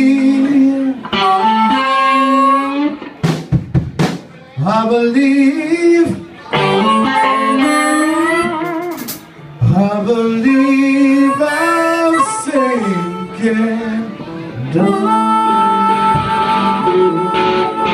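Blues-rock band playing live: a harmonica wails over electric guitar, bass guitar and drum kit, its held notes bending in pitch. Near the end it holds a steady chord.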